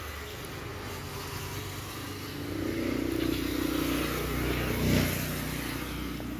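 A motor vehicle's engine passing on the road, growing louder over a few seconds to a peak about five seconds in, then easing off.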